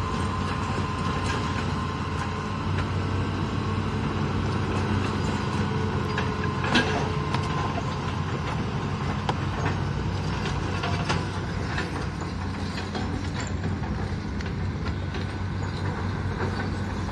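Hitachi hydraulic crawler excavator's diesel engine running steadily as the machine swings its raised boom and bucket. A few sharp knocks sound over it, the loudest about seven seconds in.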